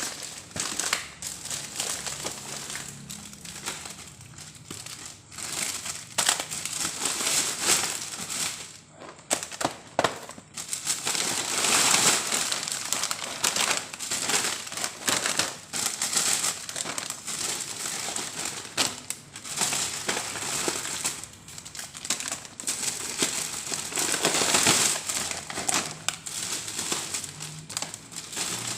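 Plastic food packaging crinkling and rustling as it is handled, with many irregular sharp crackles throughout.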